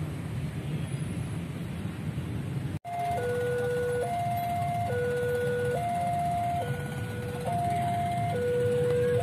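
Railway level-crossing warning alarm sounding as the crossing closes for an approaching train: an electronic two-tone signal that alternates steadily between a higher and a lower tone, each held just under a second. Before it starts, about three seconds in, there is only a steady low outdoor rumble.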